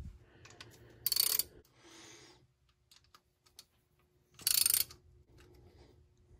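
Socket ratchet clicking in two short bursts, about a second in and again near the five-second mark, as intake manifold bolts are run down by hand, with a few single faint clicks of the socket between.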